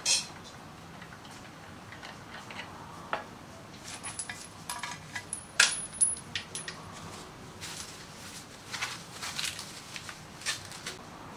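Metal tools and parts clinking and tapping as they are handled and set down during motorcycle transmission assembly. There is a sharp click at the very start, then scattered clinks, thickest in the middle and again towards the end.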